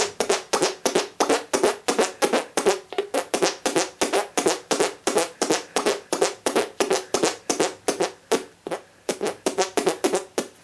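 Hand farts: air squeezed out between two hands cupped and pressed together, making a rapid run of short fart noises, about four a second, that stops just before the end.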